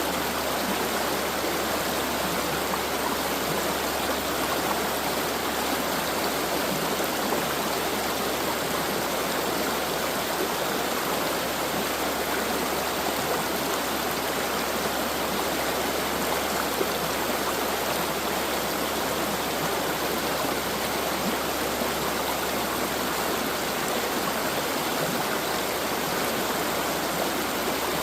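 Stream water rushing and splashing steadily over rocks, an even, unbroken flow.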